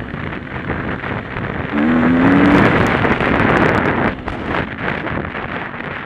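Dirt bike engine running under throttle, mixed with heavy wind rush on a camera riding with the bike; the engine note climbs about two seconds in and the sound is loudest through the middle, easing briefly about four seconds in.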